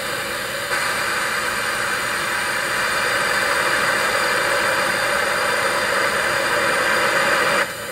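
Vacuum pump running steadily with a hiss of air as it draws a vacuum on an underground heating oil tank for a tightness test. It gets a little louder about a second in and drops back just before the end.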